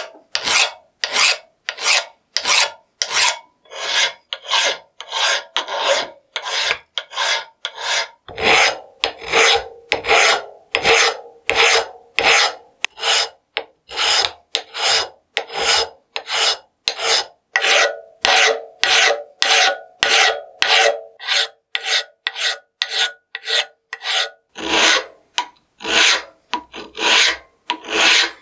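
A hand flat file rasping over the metal of a Gressel vise body, one stroke after another at about two strokes a second, taking down high spots. Many strokes carry a steady ringing tone from the workpiece.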